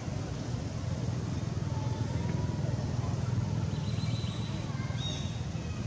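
Steady low outdoor background rumble, with a few brief high chirps about four and five seconds in.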